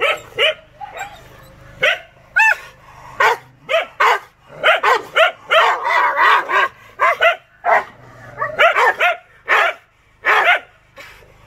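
Rottweiler barking aggressively in short barks that come in irregular runs. There is a brief high yelp about two and a half seconds in and a rougher, denser run of barking around six seconds in.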